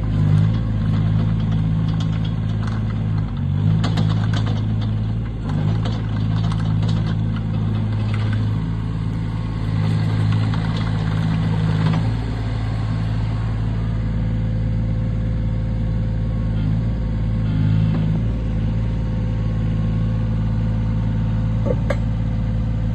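Yanmar ViO10-2A mini excavator's small three-cylinder diesel engine running steadily while the hydraulics are worked: the engine note dips and recovers every few seconds as the boom, arm and bucket are moved and the machine slews. A few light metallic clanks sound between about four and seven seconds in.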